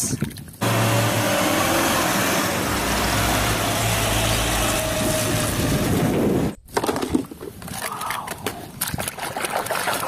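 A full-size school bus running on the road, a steady loud engine drone that cuts off abruptly about six and a half seconds in. After that, muddy water splashing and sloshing in a plastic basin as a toy is washed.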